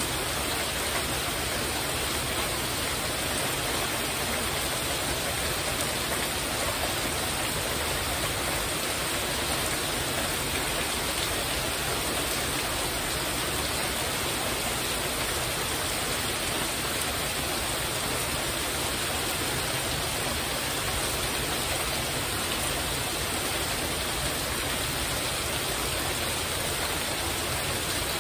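Heavy rain falling steadily on a porch roof overhead, an even, unbroken hiss.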